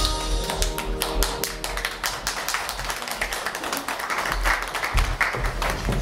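Dance music playing, with its tune fading out in the first second or two, then an audience applauding with many hands clapping for the rest.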